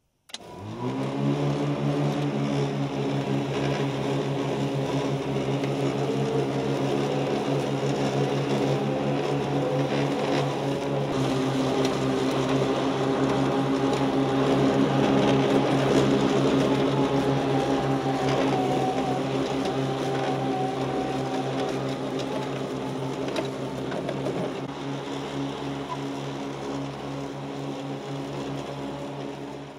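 Electric blade motors of a GE Elec-Trak E15 front mower deck spinning up, rising in pitch for about a second, then running with a steady whir of several pitches as the electric tractor mows grass.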